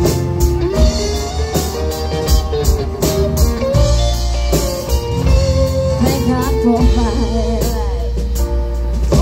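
A live country-rock band playing through a PA: electric and acoustic guitars, keyboard, bass and drums keep a steady beat under a held melody line.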